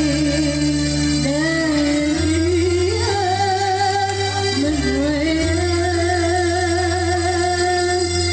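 A woman singing an Arabic-style religious song with long, wavering held notes into a microphone, over a live gambus band of violin, oud and keyboard, with sustained low bass notes that change about every second or two.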